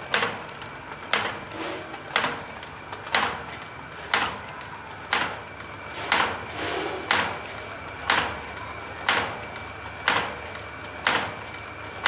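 Automatic cam-driven wire bending machine running, its slides and levers clacking sharply about once a second as each cycle cuts and bends a wire hook. A faint steady whine runs underneath.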